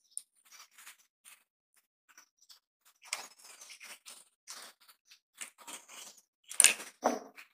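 Small screwdriver turning a terminal screw on a plastic two-way switch while wires are handled: a run of short scratchy clicks and rustles that gets busier partway through, with the loudest clatter near the end.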